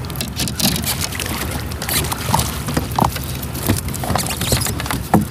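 A small bluefish splashing at the surface as it is reeled in and scooped into a landing net, with irregular knocks and rattles against the plastic hull of a pedal kayak.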